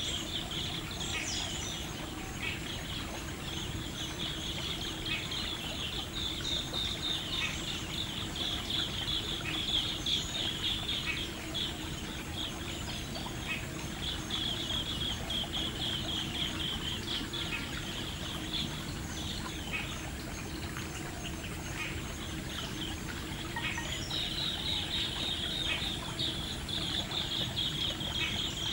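A flock of green bee-eaters chirping and trilling together, their calls coming in runs of several seconds, over a steady low hum.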